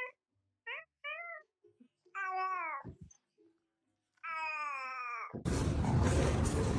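A cat meowing: two short meows about a second in, then two longer meows that fall in pitch. Near the end the meowing stops and a loud, dense noisy sound cuts in abruptly.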